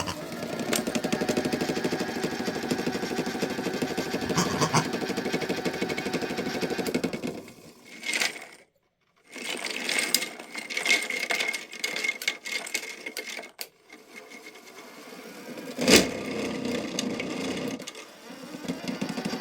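Washing machine running with cardboard hexagons tumbling in its drum: a dense, steady rattling. It breaks off for a moment about eight seconds in, comes back more unevenly, and there is a single loud knock about sixteen seconds in.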